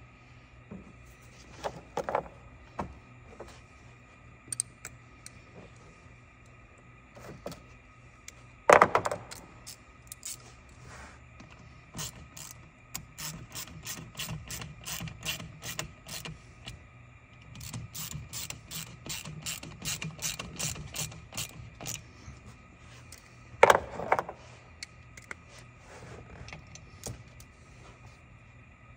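A hand ratchet clicking in quick runs, about four clicks a second, as it tightens the hose clamp on the air intake tube at the throttle body. Two sharp metal knocks come about 9 seconds in and near the end.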